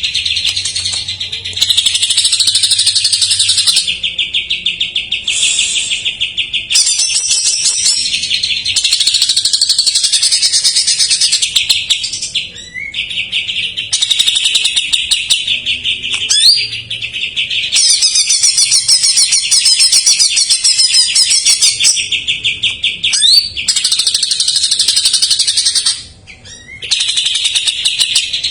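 Cucak ijo (greater green leafbird) singing loudly and almost without pause. Its song is a rapid run of trills and chattering phrases that switch every few seconds, filled with mimicked calls of other songbirds.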